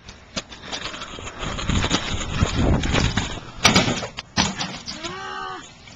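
Kick scooter's small wheels rumbling as it rolls over concrete, then a sharp clack about three and a half seconds in as the scooter comes down on the top edge of a ramp in a stall.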